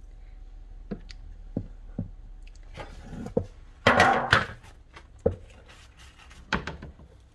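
Kitchen handling sounds: a few scattered sharp knocks and thuds of a metal mixing bowl and pizza tray moved on a wooden counter while soft dough is pulled out by hand, with a louder scraping rustle about four seconds in.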